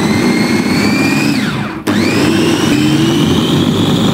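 Electric food chopper's motor running with a steady whine as its blade chops oyster mushrooms and spring onions. It winds down about a second and a half in, cuts out briefly, then is switched on again and keeps running.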